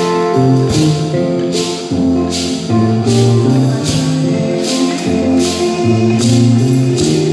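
A live band playing: held pitched notes that change every second or so, over a steady beat with a bright percussion accent about once a second.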